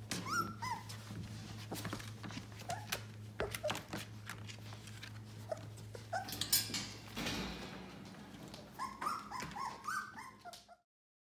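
Newborn-stage yellow Labrador retriever puppies, 18 days old, whimpering and squeaking, with short high squeals at the start and a quick run of them near the end, amid small shuffling and rustling sounds. A low steady hum sits underneath for most of it. Everything cuts off suddenly just before the end.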